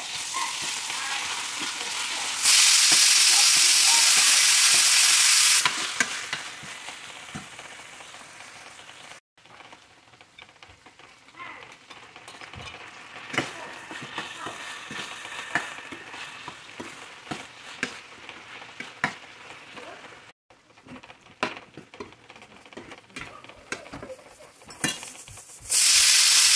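Onions, ginger-garlic paste and tomato chunks frying in a stainless steel skillet, sizzling, with a metal spoon clicking and scraping against the pan as they are stirred. The sizzling swells loud for about three seconds starting two seconds in, and again briefly at the very end.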